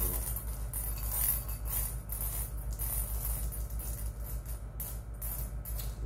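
Continuous jingling, shaker-like rattle with many quick irregular strokes, over a steady low hum.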